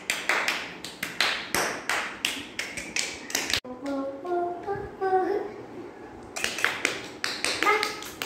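Hands clapping in a quick, steady rhythm, about three claps a second, to call puppies over. The clapping stops for a couple of seconds in the middle, where voices are heard, then starts again.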